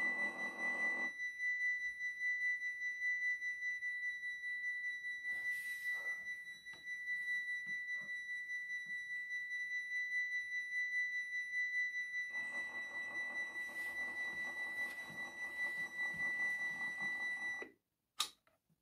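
Model Dutch level-crossing warning bell ringing a steady, high electronic tone. The crossing booms' small motors whir as the booms finish lowering about a second in, and again as they rise during the last third. Bell and motors cut off together near the end, followed by a click.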